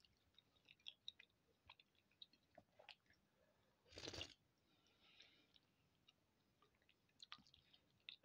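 Quiet wet mouth clicks of a person chewing, with one short, louder sip from a plastic cup of sosoma porridge about four seconds in.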